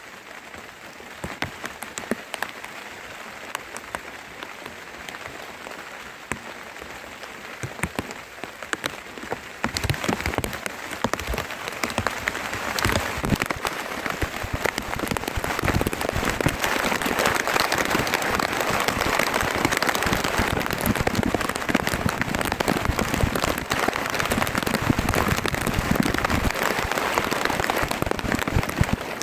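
Rain falling with a dense patter of drops, becoming much heavier and louder about ten seconds in.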